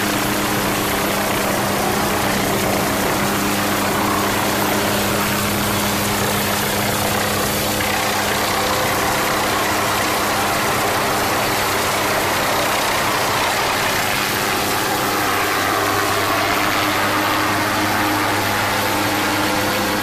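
MQ-8B Fire Scout unmanned helicopter's turboshaft engine and rotor running at a steady, constant level: a low hum with a rushing noise over it.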